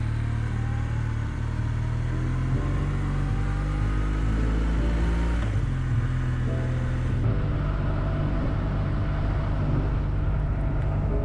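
Motorcycle engine running under way, its note rising over the first couple of seconds as it accelerates, then holding fairly steady with a few step changes in pitch.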